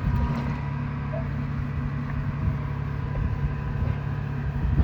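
Hand wet-sanding of a car's refinished paint with 1500-grit sandpaper, a soft irregular rubbing, over a steady low mechanical hum.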